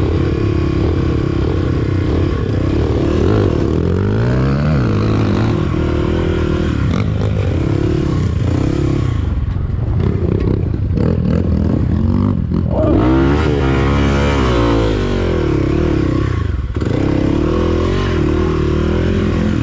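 Kawasaki KLX250 dirt bike with a 363 big-bore kit and full aftermarket exhaust, its single-cylinder four-stroke engine revving up and down as it rides off along a dirt track. The pitch rises and falls several times, with one long climb and drop about two-thirds of the way through.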